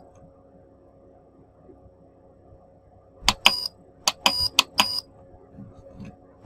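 Button presses on a rechargeable camping fan, each a sharp click with a short high beep: two about three seconds in, then four more in quick succession, and another right at the end.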